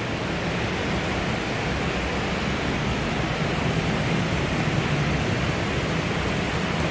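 A mountain stream rushing over rocks, a steady, even rush of water.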